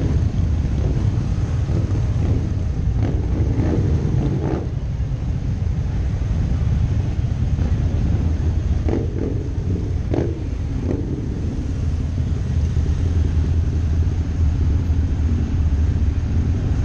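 Harley-Davidson V-twin motorcycles rumbling in slow, walking-pace traffic, a V-Rod on Vance & Hines exhaust pipes among them. Several short, louder bursts come a few seconds in and again around the middle.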